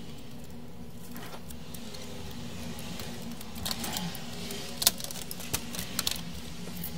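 Plastic parts of a CD player's disc-loader mechanism clicking and knocking as they are handled and fitted into the open chassis: a few sharp clicks from about halfway through, the loudest just before the five-second mark, over a faint steady hum.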